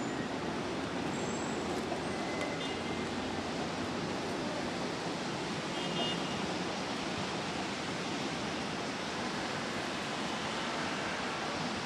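Steady hiss of rain falling, even and unbroken.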